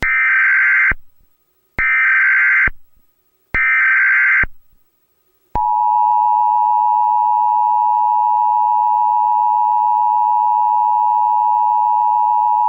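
Emergency Alert System SAME header: three short bursts of digital data tones, each just under a second long and about a second apart. About five and a half seconds in, the steady two-tone EAS attention signal begins and holds.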